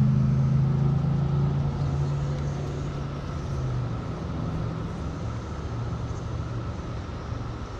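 A passing motor vehicle's engine: a steady low drone, loudest at the start and fading away over the first four seconds or so.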